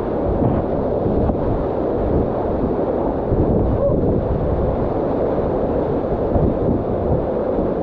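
Waterfall: a steady, loud rushing with a deep rumble underneath.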